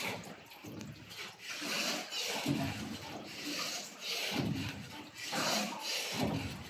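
Oars of a small wooden rowing boat dipping and pulling through calm river water in a steady rhythm, a splashy swish about once a second.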